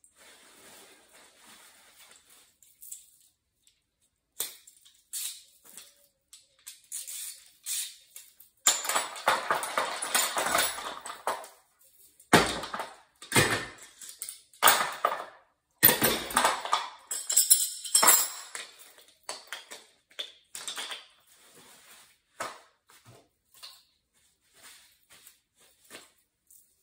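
Metal hand tools clattering and scraping as they are rummaged through and set down in a toolbox, in irregular bursts that are busiest through the middle.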